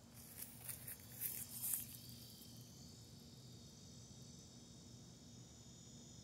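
Faint, steady, high-pitched insect chorus. A few brief rustles come in the first two seconds.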